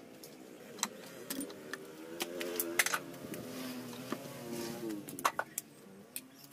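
Scattered sharp clicks and clinks of small hard objects, a dozen or so at irregular intervals, over faint wavering tones.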